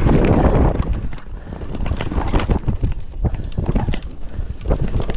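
Wind buffeting the microphone of a mountain bike rider's camera while riding, with a low rumble and frequent short knocks and rattles from the bike going over rough trail.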